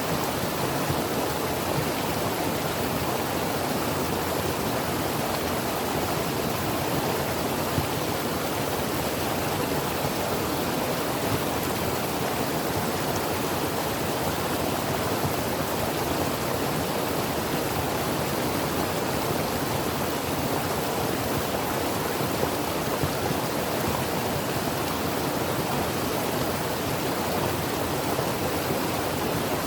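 Creek water running over rocks: a steady, even rush with no breaks.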